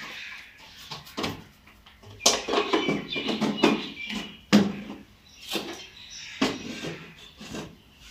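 Knocks and clatter of a plastic bowl and a clay kneading bowl being handled and set down on a concrete floor, in a run of irregular sharp strikes.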